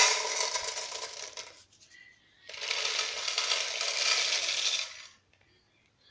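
Two bursts of rattling clatter, like small hard objects tumbling against a hard surface: one about a second and a half long, then after a short gap a longer one of about two and a half seconds.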